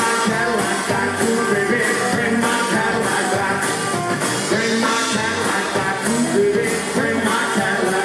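A rockabilly band playing live: electric guitar, acoustic guitar, upright bass and drums with a steady driving beat.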